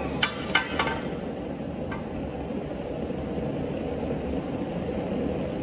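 Small electric 5-ton log splitter rigged as a forging press, its motor and hydraulic pump running with a steady hum. Three sharp metal clanks in the first second and one more about two seconds in, as the hot steel spike is shifted with tongs against the press's dies.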